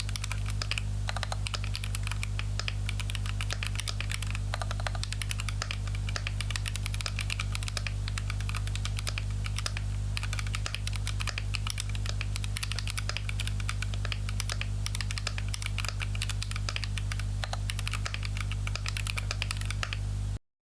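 Continuous fast typing on an RK61 Pro mechanical keyboard fitted with stock Akko CS switches: a dense run of key clicks over a steady low hum, cutting off suddenly near the end.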